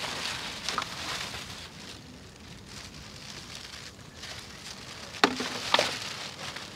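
Plastic garbage bag holding empty plastic bottles being handled, crinkling and rustling, with two sharp knocks about five seconds in, half a second apart.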